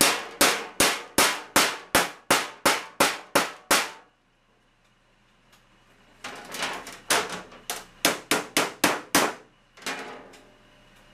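Body hammer striking an aluminium sheet edge backed by a metal dolly, hammer-and-dolly work to flatten a ridge in the panel. A quick run of sharp metallic blows, about three a second for about four seconds, then a pause, then a second run of blows and one lighter blow near the end.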